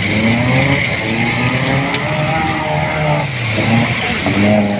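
Off-road jeeps driving through a shallow river, engines revving and falling in pitch over and over, over the steady rush of water.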